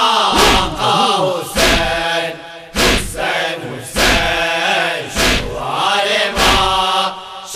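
Voices chanting an Urdu nauha, a lament for Hussain, over a sharp beat that keeps time about once every 1.2 seconds.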